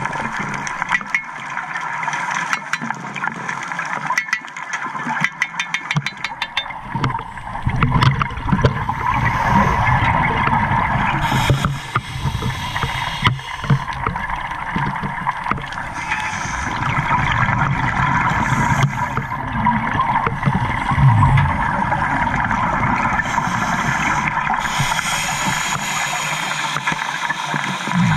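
Underwater sound of scuba divers' exhaled bubbles gurgling up in bursts, over a steady hiss and crackle of the water.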